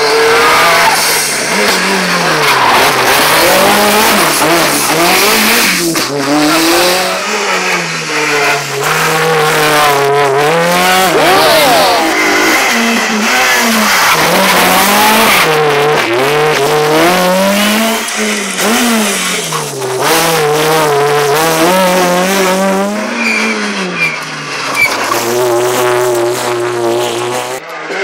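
Rally car engines at full effort on a tarmac stage. A Renault Clio rally car revs hard and passes close about halfway through, its pitch climbing and dropping again and again through gear changes and lifts. Near the end the revs hold steady for a couple of seconds.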